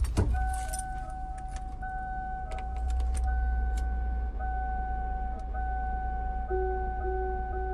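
Slowed-down car sounds from the opening of the song: a car's warning chime dinging over and over above a low engine rumble, with a few sharp clicks like keys. A lower repeating tone joins about six and a half seconds in.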